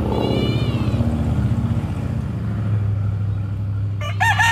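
A kitten gives one short, high meow, over a steady low rumble. Near the end a rooster starts a long crow.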